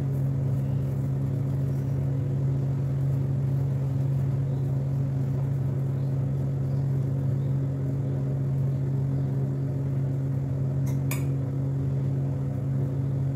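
Steady low machine hum, with a steel spoon spreading ghee over rolled chapati dough and two light clinks about eleven seconds in.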